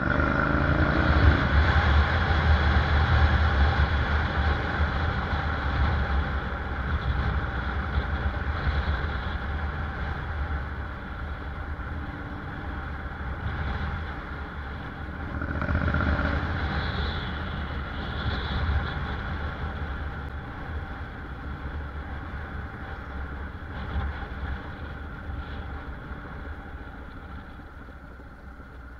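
Honda NC750X's parallel-twin engine, heard from on board, rising in pitch as the bike pulls away in the first couple of seconds, then running at low city speed. It swells again briefly about 16 seconds in and grows quieter toward the end as the bike eases off.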